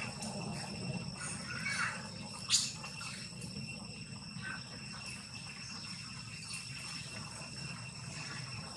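Steady high-pitched drone of insects, several tones held level, over a low rumble, with one sharp click about two and a half seconds in.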